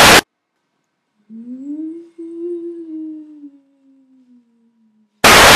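A short blast of TV static, then a person's voice holding one long low hummed note that rises and then slowly sinks in pitch, fading out before a second short blast of static near the end.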